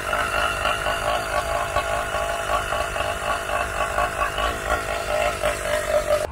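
80cc two-stroke motorized-bicycle engine idling through an aftermarket exhaust pipe, with a lumpy, panting idle that pulses several times a second.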